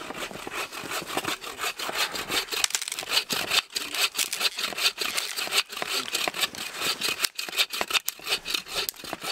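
Hand saw cutting through a log in quick, steady back-and-forth strokes, the teeth rasping through the wood.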